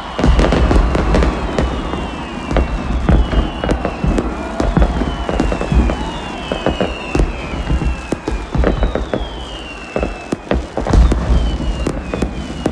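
Fireworks sound effects: a dense run of bangs and crackles over deep booms, with whistles that fall in pitch about once a second.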